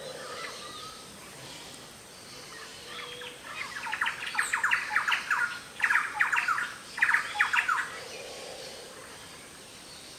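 Birds calling: quick runs of sharp, rapidly repeated calls in three bouts, from about three and a half to eight seconds in, over faint background birdsong.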